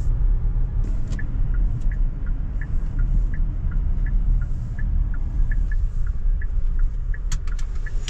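Car road noise heard from inside a moving vehicle: a steady low rumble. A faint, light ticking repeats about three times a second over it.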